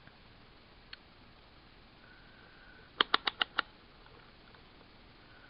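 Rotary selector dial of a Cen-Tech digital multimeter turned by hand, clicking through its detents: one faint click about a second in, then a quick run of five sharp clicks about three seconds in.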